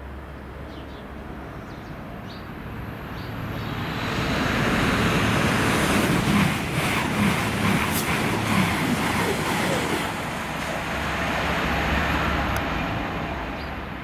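Diesel train running through the station: the rush of wheels on rail swells about four seconds in and holds for several seconds with quick clacks, then eases off.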